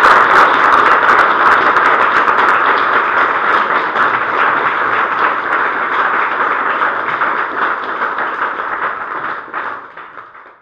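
Audience applauding: a dense crowd of clapping hands, loudest at the start and slowly tapering off, then cut off suddenly at the end.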